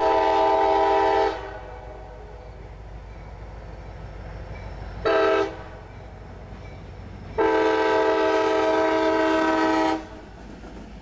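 CSX diesel locomotive's air horn sounding for a grade crossing: a long blast, a short one about five seconds in, then a long blast of about two and a half seconds, over the low rumble of the approaching train.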